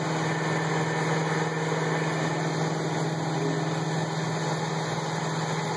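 BERCO cylindrical grinder's electric motors running with a steady hum, the grinding wheel spinning.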